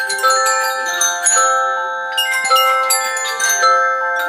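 Classroom barred mallet instruments played together, struck in a repeating pattern of ringing notes.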